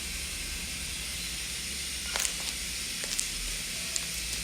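Slime being squeezed and worked by hand, giving a few small sticky clicks about two seconds in and again near the end, over a steady background hiss.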